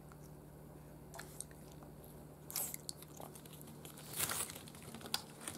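A Frenchton puppy chewing food, with scattered crunches. The loudest cluster of crunches comes about four seconds in.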